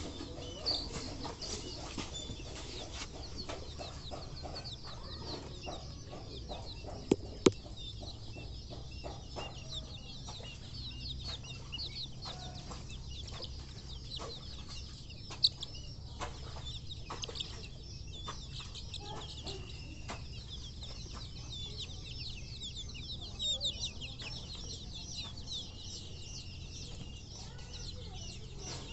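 A flock of young chickens peeping continuously, with many short, high, falling calls overlapping. A few sharp knocks sound about seven seconds in and again at about fifteen seconds.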